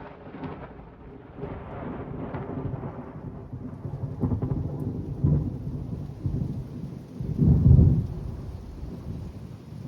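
Thunder rumbling and rolling on after a close lightning strike. It swells louder about five seconds in and again near eight seconds in, then fades.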